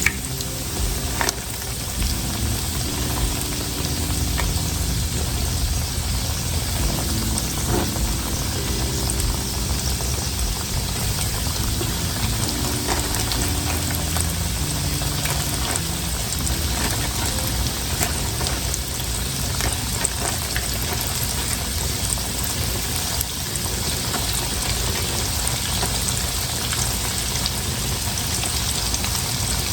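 Breaded chicken tenders frying in hot oil: a steady sizzle with scattered crackles and pops.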